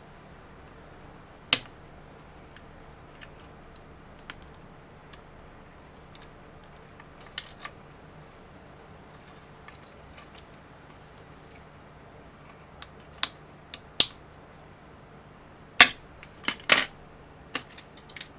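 Scattered sharp clicks and snaps as pliers pry and clip at the plastic LED cover inside a DJI FPV drone's motor arm. The loudest come about a second and a half in and in a cluster near the end.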